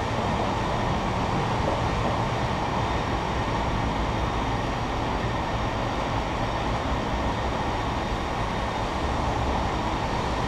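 Steady, unbroken rumble and hum of a San Francisco cable car standing at a crossing, with the haul cable running in its slot under the street.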